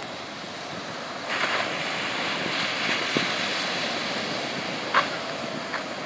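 Ocean surf breaking and washing up the shore, a steady rush that grows louder about a second in, with a brief tap near the end.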